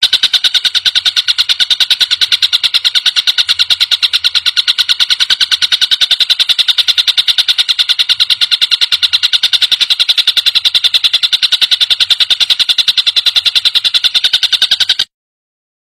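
Tengkek buto kingfisher calling in a fast, even rattle of repeated high notes without a break, cutting off suddenly near the end.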